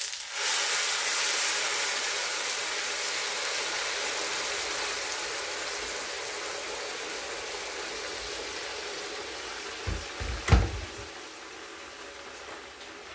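Hot water poured from an electric kettle into a hot frying pan of sautéed rice and vegetables, hissing and sizzling as it hits the pan, the hiss dying down slowly. About ten seconds in come a few light knocks and one sharp knock.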